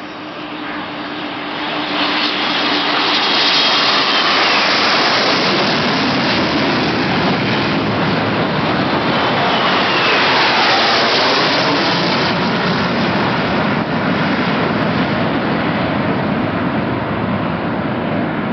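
A formation of Galeb military jet trainers flying low overhead with a loud turbojet roar. The roar builds about two seconds in, and a falling whine comes twice as aircraft pass. It then holds as a long, steady roar that eases slightly near the end.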